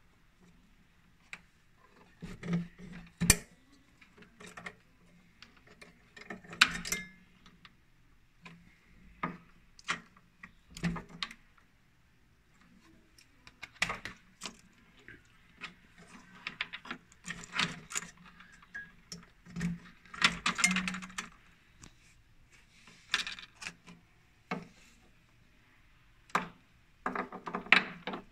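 Irregular clicks, taps and light rattles of small parts handled by hand at the back of a lamp housing: a halogen bulb's wire spring clip, plastic connectors and metal spade terminals.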